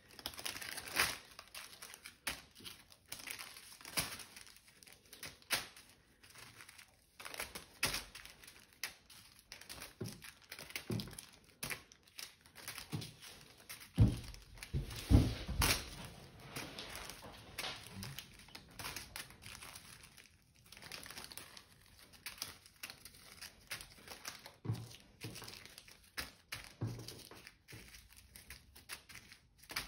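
Small zip-lock plastic bags of diamond-painting drills crinkling and rustling as they are picked up and sorted by hand, with irregular taps as bags are set down on a wooden table. A cluster of louder thuds comes about 14 to 16 seconds in.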